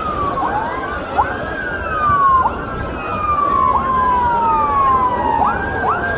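Emergency vehicle sirens wailing, overlapping: each sweep rises quickly and falls slowly, and the sweeps come faster near the end.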